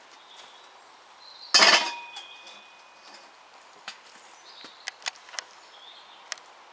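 Metal cookware handled on a camping stove: one loud clank about a second and a half in that rings on briefly, followed by a few light metallic clinks.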